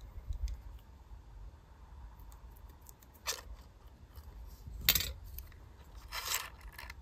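Small handling sounds from a lighter and a cord: a soft click about three seconds in, a sharper knock near five seconds as the metal lighter is set down on the table, then a brief rustle.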